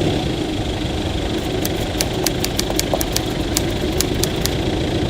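Heavy rain falling: a loud, steady, dense rumble with scattered sharp ticks of drops striking close by.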